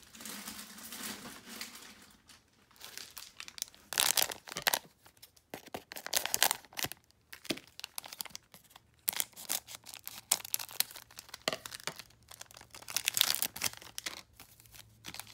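Trading card pack wrapper being torn open and crinkled by hand, with cards rustling: a run of irregular crackles and rustles.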